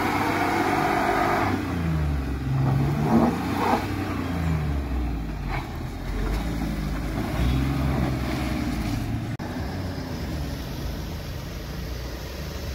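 Mahindra Bolero's diesel engine revving up and down several times as the SUV pulls out of a muddy patch, then running more evenly as it drives off.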